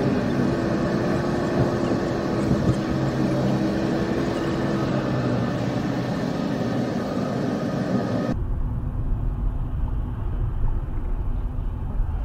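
A car driving on a motorway, heard from inside the cabin: steady road and engine noise with a faint steady tone over it. About eight seconds in, the sound changes abruptly to a duller, deeper rumble.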